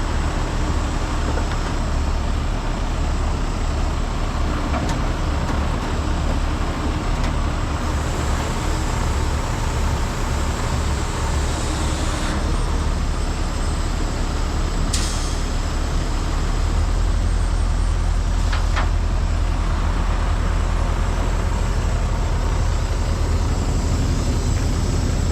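Heavy diesel truck engine running steadily, its low drone getting louder about two-thirds of the way through as the revs rise, with a few short hisses over it.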